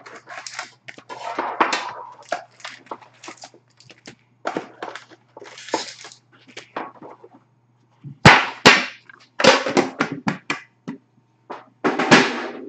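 Foil trading-card packs crinkling and rustling as they are pulled one by one from a cardboard box and stacked. A couple of sharp knocks about eight seconds in are the loudest sounds, as the box is handled.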